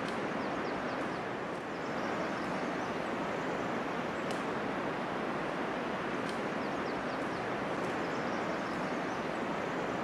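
Steady rush of a fast-flowing mountain river, even and unbroken.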